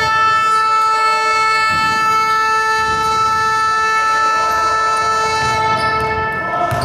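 Basketball arena horn sounding one long, steady, unwavering tone for over six seconds, then cutting off near the end.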